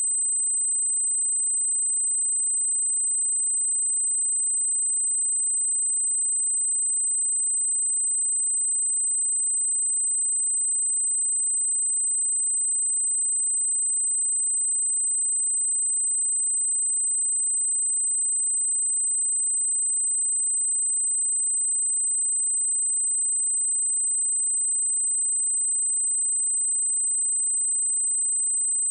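A pure 8114 Hz sine-wave test tone, one high-pitched steady whistle held at a constant level, used to check speakers and headphones.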